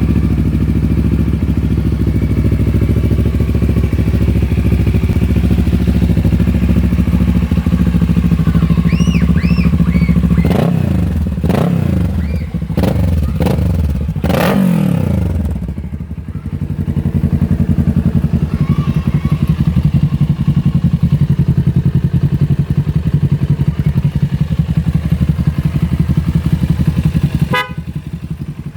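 Kawasaki ER-6n's parallel-twin engine idling steadily through a Termignoni full-system exhaust, with a run of about five quick throttle blips, each rising and falling in pitch, around ten seconds in, before settling back to idle. A short beep sounds near the end.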